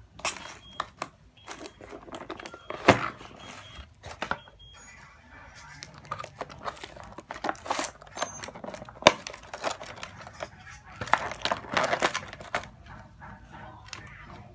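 Rustling and handling noise with many scattered clicks, and two sharper cracks about 3 and 9 seconds in.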